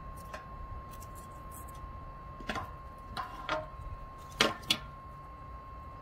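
BioLite CampStove 2 wood stove burning with its fan on low, a steady thin hum, with a handful of sharp clicks and knocks from about halfway, the two loudest a little before the end, as sticks are dropped into its metal burn chamber.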